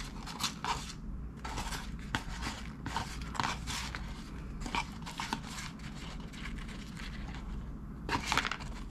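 Short, irregular rustles and light scrapes of hands handling a sandwich and its open cardboard clamshell box, picking up fallen shredded lettuce and pushing it back onto the bun, with a denser flurry near the end. A steady low hum runs underneath.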